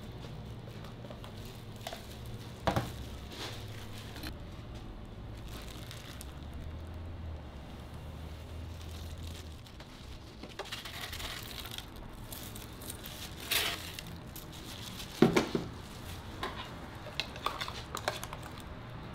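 Hand food preparation at a crepe stall: scattered knocks and clinks of a spatula, spoon and containers over a steady low hum, with a few louder knocks and some soft rustling as fruit and cornflakes are laid on the crepe.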